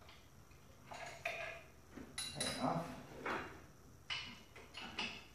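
A hand wrench clinking and scraping against bolts and metal brackets in an engine bay as engine-mount bolts are tightened: a string of short, irregular metallic clinks.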